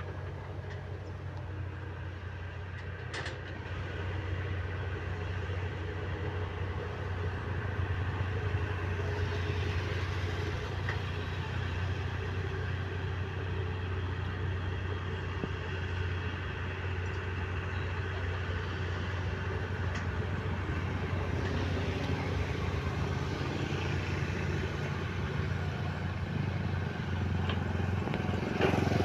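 Diesel engines of earthmoving machines, an excavator and a bulldozer, running steadily with a low hum. The sound grows somewhat louder about four seconds in.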